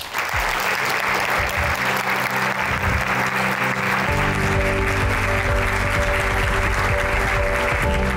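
Audience applauding steadily, with background music underneath that grows fuller about four seconds in.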